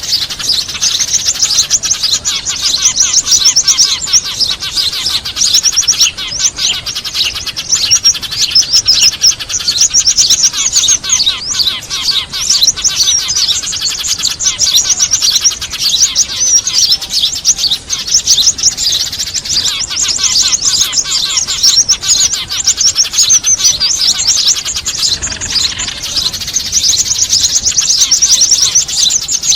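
Bird-lure recording of a dense, noisy chorus of small birds, Eurasian tree sparrows mixed with other small birds, chirping rapidly and without pause at a high pitch.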